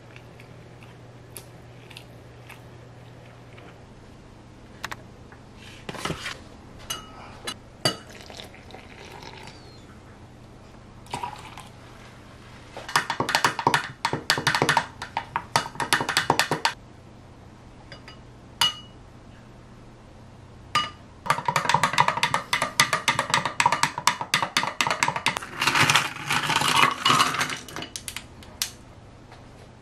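Long metal spoon stirring a green tea latte in a tall glass, clinking quickly against the glass in two long spells, the second one longer. A few single clinks and taps fall between them.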